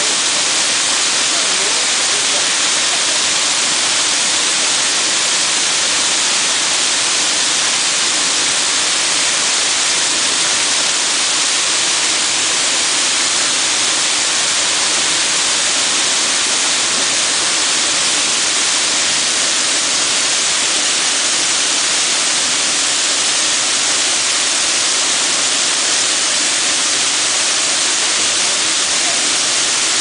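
Waterfall pouring into a rock plunge pool close by: a loud, steady rush of falling water that does not change.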